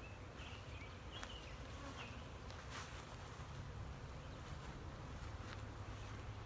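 Honeybee swarm buzzing as a steady low hum, with a few short high chirps in the first two seconds.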